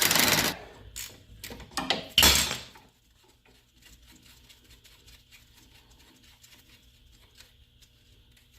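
Mini impact wrench hammering on the 18 mm lower strut bolt, cutting off about half a second in. It is followed by a few short metallic knocks, the loudest about two seconds in, then faint clicks of tools being handled.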